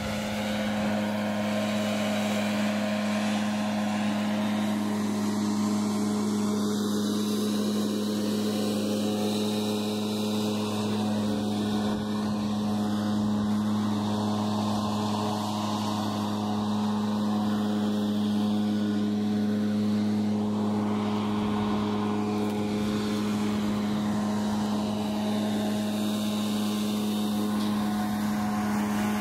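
A small engine or motor running at one steady speed, giving an unbroken even hum that begins abruptly.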